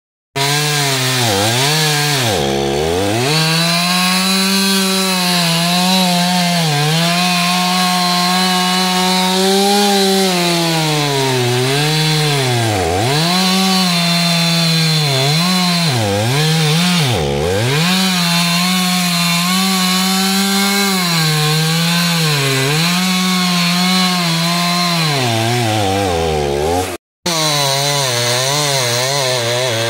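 Stihl chainsaw running at high revs while cutting wood, its pitch dipping sharply and recovering again and again as the chain bogs under load in the cut. The sound breaks off for a split second near the end, then carries on.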